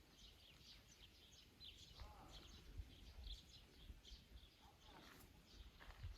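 Faint, scattered short bird chirps over a quiet outdoor background with a low rumble.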